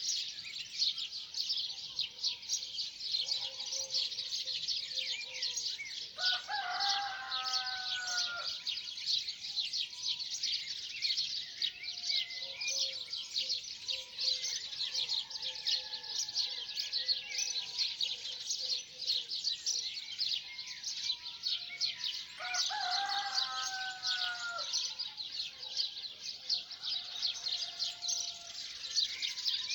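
Dawn chorus of many small songbirds chirping densely and continuously, with a rooster crowing twice: once about six seconds in and again some sixteen seconds later.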